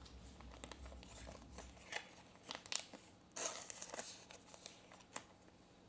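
Faint rustling and light clicks of trading cards and pack wrapper being handled, with a few short scrapes and a longer rustle about three and a half seconds in.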